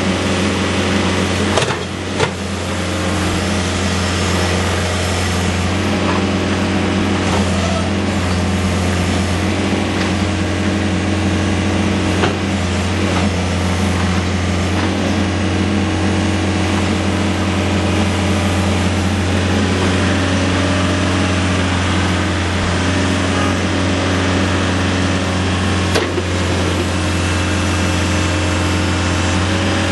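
The diesel engine of a John Deere 110 compact backhoe loader runs steadily at a constant speed. There are a couple of brief knocks about two seconds in.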